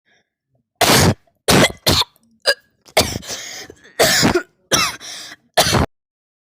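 A person making about seven short, harsh, cough-like noises with the mouth, some with a strained vocal pitch, as crude improvised sound effects.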